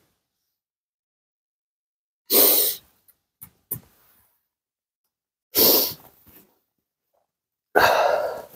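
Three short, loud puffs of a man's breath close to the microphone, a few seconds apart, with near silence between them.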